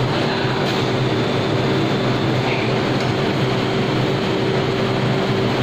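Steady drone of running food-processing machinery: a constant mid-pitched hum over a low, even rumble.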